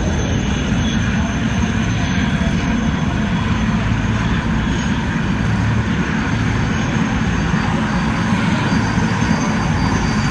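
A formation of military helicopters flying past low, their rotors and turbine engines making a steady drone.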